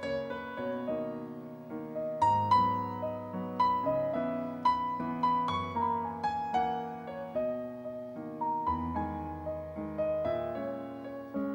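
Stage keyboard with a piano sound playing a slow solo passage: a melody of single struck notes, each dying away, over held bass notes that change twice. This is an instrumental break between sung verses of a ballad.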